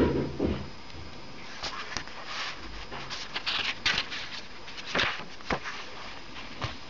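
A dull thump right at the start, then paper rustling and light clicks as the pages of a CD booklet are handled and turned.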